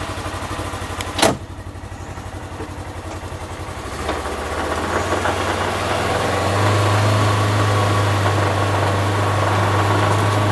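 Small off-road vehicle's engine idling with a low, even pulse, a sharp clunk about a second in, then the engine speeds up and runs steadily louder as the vehicle moves off.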